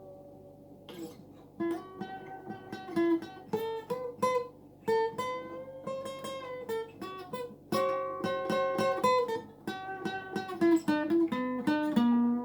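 Fender FA-125 dreadnought acoustic guitar with a laminate (plywood) top, played as a melodic line of plucked single notes, some left ringing. There is a brief pause just after the start before the notes resume.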